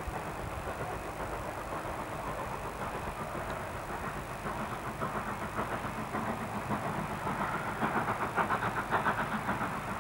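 Steam locomotive working hard as it approaches, its exhaust beats coming quickly and evenly over a steady hiss and rumble, growing louder over the last few seconds.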